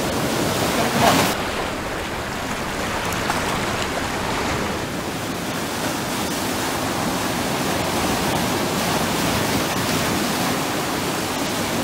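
Ocean surf breaking and washing on the shore: a steady rush of waves, with one louder surge about a second in.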